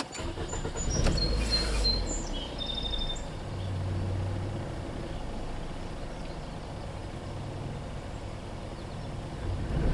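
Car engine starting and then idling steadily, with a few short high-pitched chirps in the first couple of seconds.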